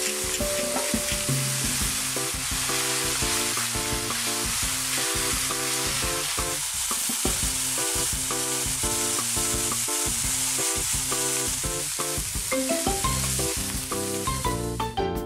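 Food sizzling steadily as it fries in a pan; the sizzle stops near the end. Background music with a repeating melody plays underneath.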